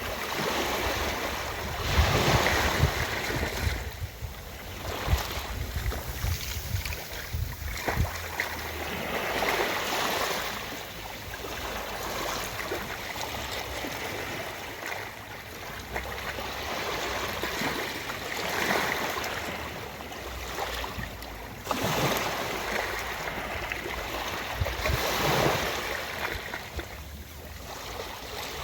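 Ocean waves washing onto a beach, swelling and falling back every few seconds.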